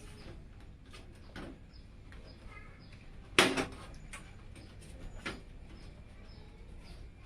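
Parts of a PC case being handled: scattered small clicks and taps, with a sharp knock about three and a half seconds in and a lighter one about two seconds later.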